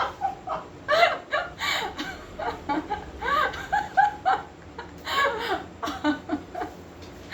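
Laughter: repeated short bursts of giggling and chuckling.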